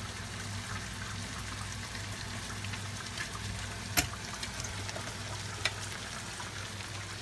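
Tomato sauce sizzling steadily in a frying pan as it is stir-fried, with a sharp click about four seconds in and a lighter one near six seconds.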